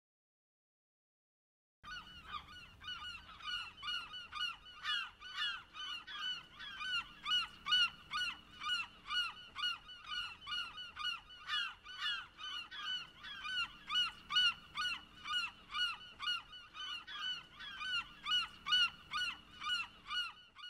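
Gulls calling: a continuous, rapid run of short, harsh yelping calls, about three a second, starting after about two seconds of silence.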